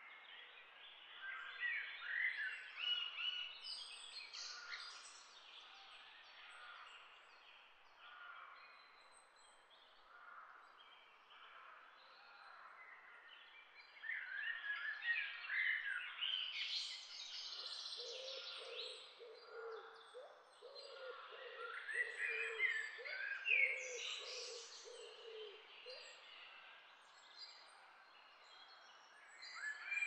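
Small songbirds twittering and chirping in bursts of quick, high notes. Partway through, a lower bird call is repeated over several seconds, a series of short hooting or cooing notes.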